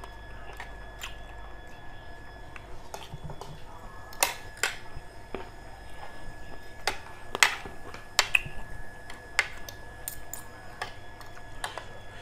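Metal spoon and fork clicking and scraping against a ceramic plate while eating, in irregular sharp clinks, a few of them louder, about four and seven seconds in.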